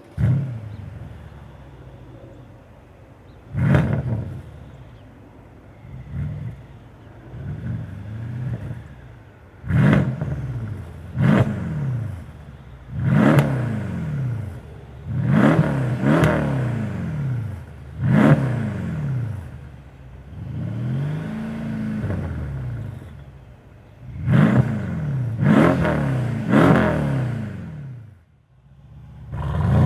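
Mercedes-Benz E63 AMG's 5.5-litre twin-turbo V8 through an Alpha Series performance exhaust, revved about a dozen times: each rev rises sharply in pitch and loudness, then falls back to a lower idle between blips. The level drops briefly near the end.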